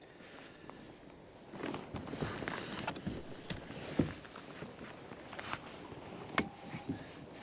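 Irregular knocks and rustling scrapes of gear being handled in a plastic kayak while a hooked fish is played, starting about a second and a half in, with two sharper knocks, one near the middle and one near the end.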